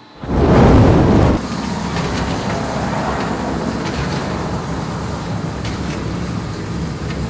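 Red-hot forged steel bow shackles plunged into an oil quench tank: a sudden loud rush as they hit the oil, lasting about a second, then a steady seething and churning as the hot steel boils the oil and the surface burns.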